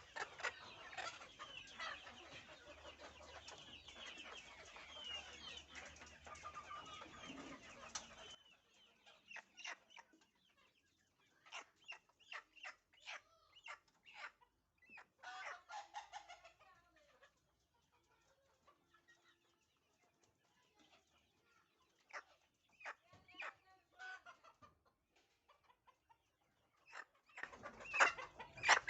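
A flock of Fayoumi chickens clucking. For the first eight seconds or so, many birds call over one another. The sound then drops off suddenly to scattered single clucks and short calls with quiet gaps between them.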